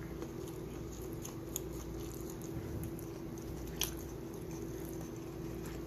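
Quiet room tone: a steady low hum with a few faint clicks, the clearest a little before four seconds in.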